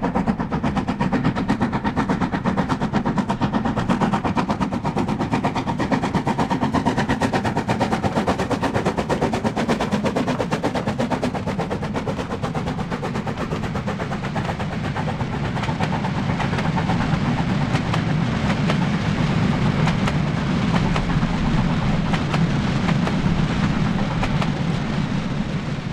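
Harzquerbahn narrow-gauge steam locomotive working, its exhaust beating in a fast, even run of chuffs with a steady low rumble underneath. The beats ease somewhat in the middle and grow louder again later.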